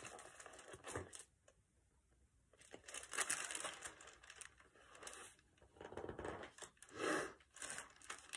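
Paper pages of a picture book rustling and crinkling as they are turned and the book is handled, faint, in several short spells.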